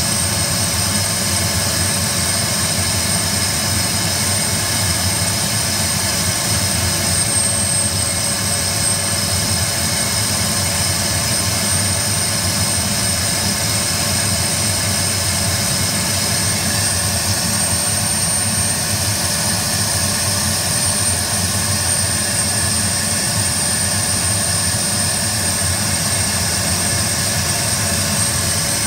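Stuttgart Engineering STV 130 small turboprop engine running steadily at low propeller speed, a high turbine whine over a steady low rumble. The tone shifts slightly a little over halfway through.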